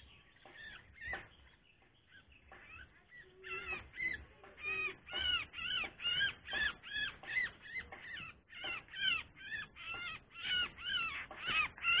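A bulbul calling harshly over and over, about three calls a second, while caught and held in a hand. The calls start about three and a half seconds in and keep on without a break.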